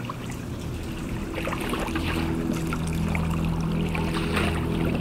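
Water flowing and trickling, with small drips and splashes. Low held notes of background music come in about two seconds in.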